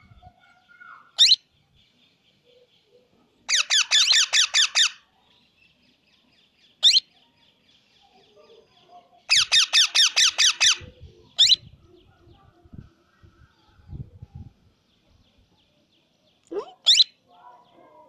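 Young plum-headed parakeet calling: single sharp, rising squeaky calls now and then, and twice a rapid chattering run of about ten high calls lasting over a second.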